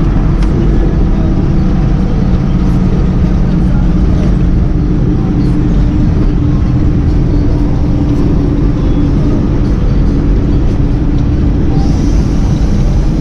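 Mercedes-Benz 1518 truck's diesel engine running steadily while driving, heard from inside the cab. A high hiss joins near the end.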